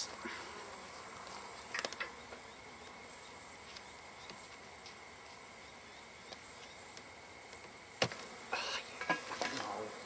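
Honeybees buzzing steadily around their disturbed wild hive. There are a few sharp clicks about two seconds in and a string of knocks near the end.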